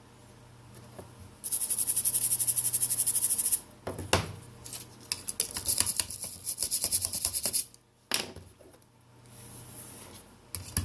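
Rubbing on a smartphone battery while it is cleaned with alcohol: about two seconds of fast, even back-and-forth strokes, then slower, uneven scrubbing and scraping with small clicks.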